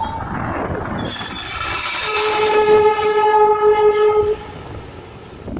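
Darjeeling Himalayan Railway NDM6 diesel locomotive running past with its train, sounding one long, steady horn from about a second in for some three seconds, over the rumble of the engine and wheels.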